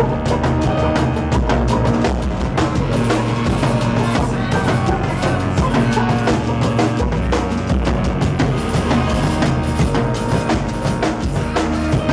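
A live band playing loud, dense music: fast drum-kit hits over electronic sounds and held tones.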